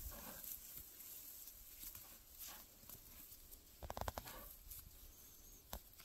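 Faint handling sounds of a rope being tied around a bear's paw in dry grass: soft rustling, with a quick rattle of clicks about four seconds in and one more click near the end.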